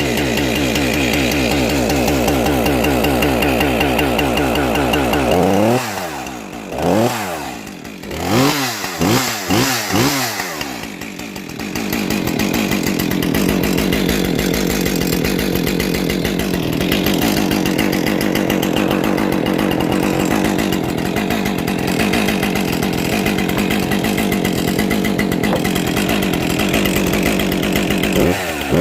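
Husqvarna 550 XP Mark II two-stroke chainsaw running: a steady idle, then about half a dozen quick throttle blips that rise and fall in pitch. After that it settles into steady running for the rest of the time.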